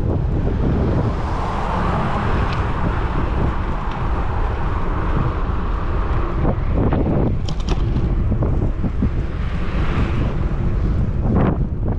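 Riding wind buffeting a bike-mounted GoPro Hero 10's microphone, a steady heavy rumble, with road traffic swelling past about two seconds in and again near ten seconds.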